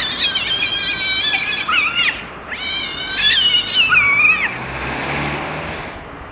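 Two domestic cats fighting: two long, high, wavering yowling screams, one after another with a short break between, then a brief burst of noise as the fight breaks off.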